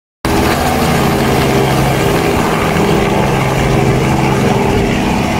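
Robinson R44 helicopter flying past low, its rotor and piston engine making a steady hum over a wide rush of noise.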